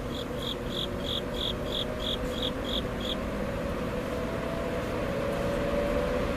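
Arvin model 7414 box fan running on high: a steady motor hum and rush of air. Over it, a high chirp repeats about three times a second and stops about three seconds in.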